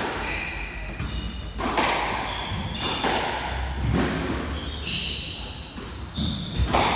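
Squash rally: the ball cracking off rackets and walls in sharp, echoing impacts every second or so, with rubber-soled shoes squeaking on the wooden court floor between shots.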